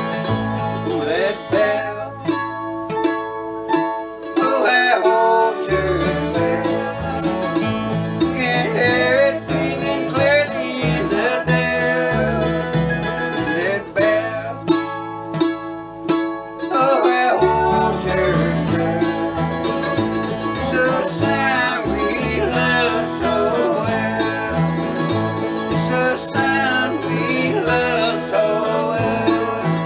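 Acoustic bluegrass string band playing an instrumental break of a gospel tune, with plucked strings over a bass line that drops out briefly twice.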